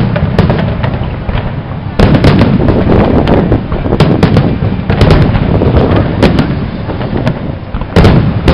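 Aerial firework shells bursting in rapid succession, a continuous barrage of booms and crackling, with fresh loud volleys about two seconds in, again around five seconds, and near the end.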